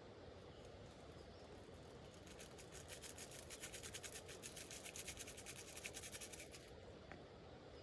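Rapid scratchy rubbing, a fast train of close-spaced strokes lasting about four seconds and starting about two seconds in, over a steady low hiss of rain.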